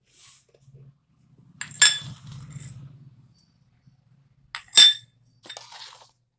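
Two sharp, ringing clinks about three seconds apart: a small dish knocking against a stainless steel mixing bowl as spice powder is tipped in.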